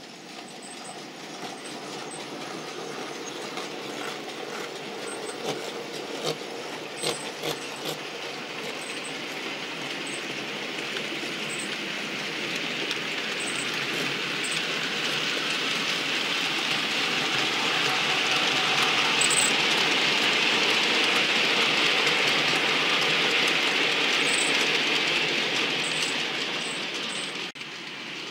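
OO gauge model train running on the layout's track, a steady rumble of wheels and motor that grows louder through most of the stretch, with a few clicks in the first third, then drops suddenly just before the end.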